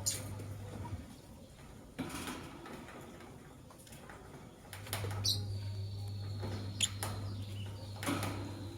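Lovebirds giving short, sharp chirps, about five scattered through, over a steady low hum.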